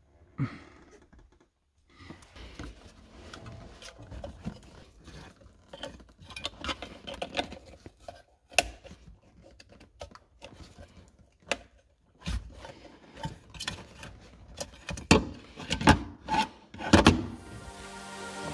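Hands fitting an airbag sensor module onto its metal bracket on a car's floor tunnel: irregular clicks, knocks and rubbing of plastic and metal parts, with a few louder knocks near the end.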